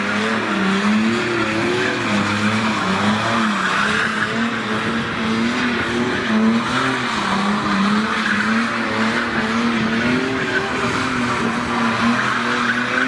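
A car drifting, its engine held at high revs that rise and fall with the throttle while the tyres squeal continuously.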